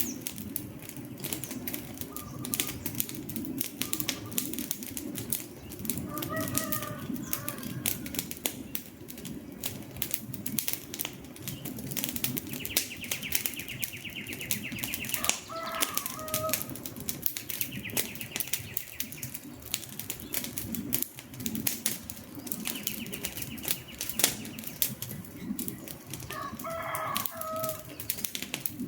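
Campfire burning, with constant crackling and sharp pops over a low rush of flame. A bird calls three times, and a high buzzing trill comes and goes in short spells.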